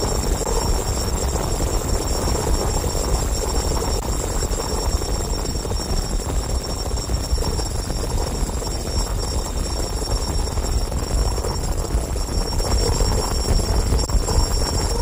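Electronic feedback noise from a live experimental noise performance: a loud, continuous wall of noise with a deep rumble beneath and steady high whining tones above. A lower hum comes back in near the end.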